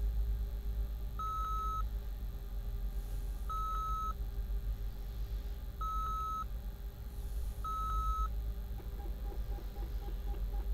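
An electronic device beeping: four long single-pitch beeps about two seconds apart, followed near the end by a quick, even ticking, over a steady low hum.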